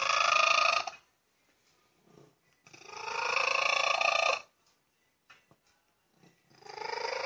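Tabby cat meowing: three long, drawn-out meows, each rising in pitch as it starts, the last beginning near the end.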